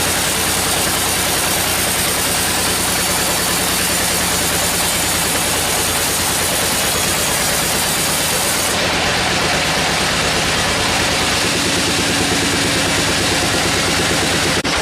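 Sawmill machinery running steadily: a low engine hum under loud, dense noise. The highest hiss drops away about nine seconds in.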